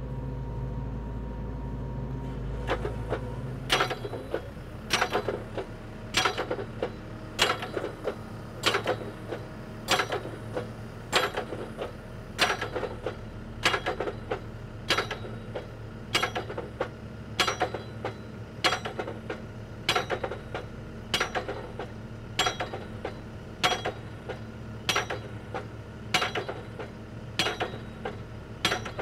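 Automatic drop hammer on a Geoprobe 8040DT direct-push rig striking the drive head, driving a split-spoon sampler out of 3.25 in. casing: sharp, ringing metallic blows about one every 1.2 seconds, starting about four seconds in, over the rig's steady engine hum. The blows are counted per 6 in. of penetration to give the sampler's blow counts.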